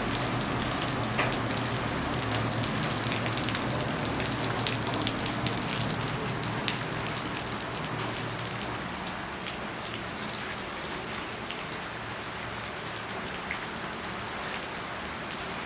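Steady rain falling, with many drops tapping on surfaces; it eases a little over the second half.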